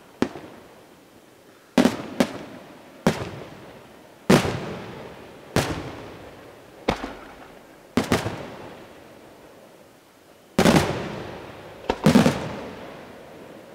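Aerial firework shells bursting overhead: about ten sharp bangs, most of them a second or so apart, each trailing off in a long rolling echo. After a short lull, a louder cluster of bursts comes near the end.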